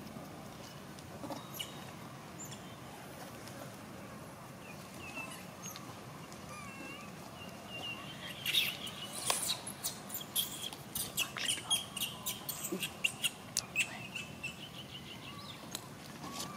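High, short chirping calls, few at first and thickest from about halfway in, mixed with a run of sharp clicks and crackles.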